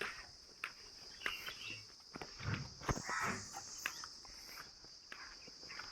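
Buffaloes walking, with scattered knocks of hooves and steps over a steady high-pitched drone of insects.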